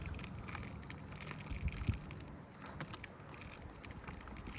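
Faint crackling and scraping of an aged asphalt shingle being lifted and bent by hand, the brittle shingle creasing and shedding granules, with a light thump a little before the middle.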